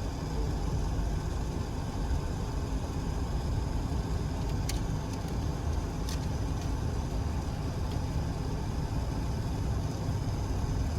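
Waterfall: a steady rushing of falling water, an even noise that is heaviest in the low range and does not let up.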